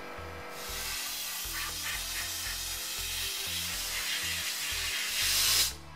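Abrasive blaster nozzle blasting grit onto the bare steel underside of a car body to strip surface rust and underseal. It makes a loud, steady hiss of air and grit that starts about half a second in, grows louder near the end and cuts off suddenly just before the end. Background music plays underneath.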